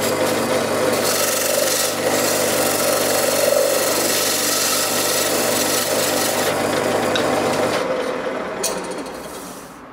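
Wood lathe running while a hand-held turning tool cuts the face of a spinning wooden disc, a steady rasping cut over the motor's hum. Near the end the cutting and the motor stop, there is a click, and the sound dies away as the lathe winds down.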